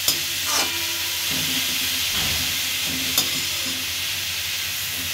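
Grated bottle gourd frying in hot ghee in a steel kadhai, a steady sizzle as it gives off its water, while it is stirred, with a couple of sharp clicks of the stirring spoon against the pan.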